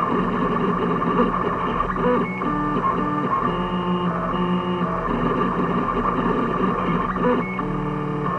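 Stepper motors of a home-built 3D printer whining as the print head moves during a print. The tones hold a steady pitch for a moment and then jump to a new pitch with each change of move, over a low steady hum.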